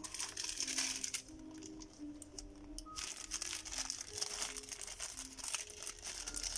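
Clear plastic packaging crinkling as it is handled: a short spell at the start, then a longer one from about three seconds in as a small zip-lock bag is squeezed between the fingers. Soft background music plays underneath.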